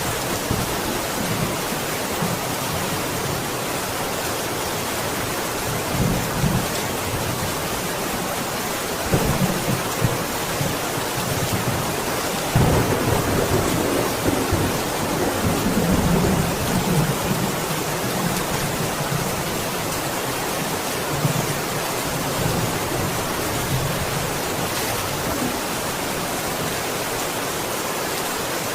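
Steady heavy rain with thunder rumbling several times, the longest and loudest roll starting about halfway through and fading over several seconds.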